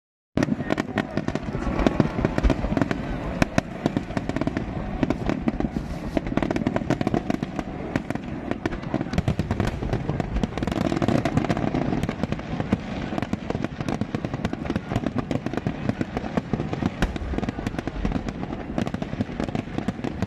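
Fireworks display: a dense, unbroken stream of sharp bangs and crackling pops over a steady low rumble.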